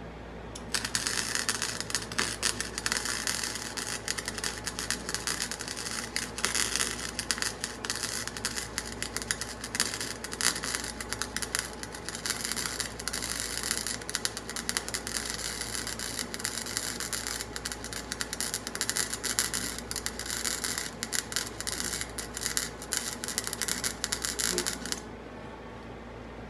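Flux-core wire welder (Harbor Freight Flux 125) laying a weld to reattach a broken mower pulley, on minimum heat with wire speed 3: the arc crackles and spits steadily. It starts about a second in and stops a second or two before the end.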